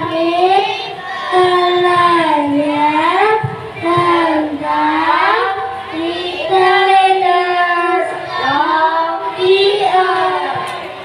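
A group of young children singing a melody together in unison, in sustained phrases with short breaths between them, the singing trailing off near the end.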